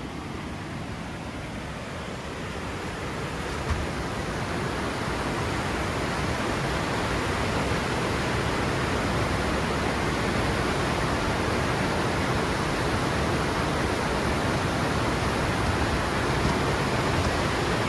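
Waterfall rushing: a steady, even wash of falling water that grows louder over the first several seconds, then holds.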